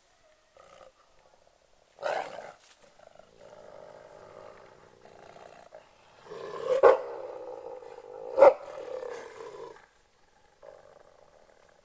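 A group of wolves growling in a close social encounter, in stretches that start about two seconds in and stop near the end. Two sharp snaps, about a second and a half apart, are the loudest sounds.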